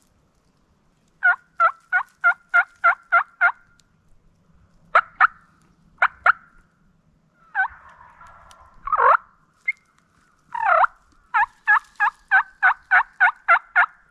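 Turkey yelping. A run of seven quick, sharp yelps comes first, then a few single and paired yelps with a rougher, drawn-out note in the middle, and near the end another run of about nine yelps.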